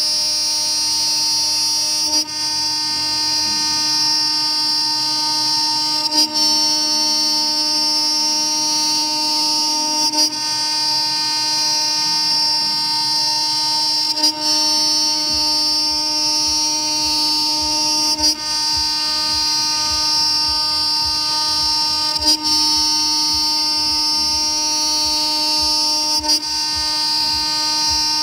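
A 2.2 kW, 24000 rpm CNC router spindle runs while its end mill cuts a pocket in 20 mm aluminium plate, making a loud, steady multi-tone whine. About every four seconds there is a brief dip with a click.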